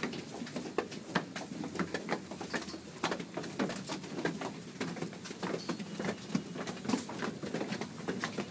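Footsteps of a crowd of commuters on a stairway: a dense, irregular patter of many shoes, several steps a second.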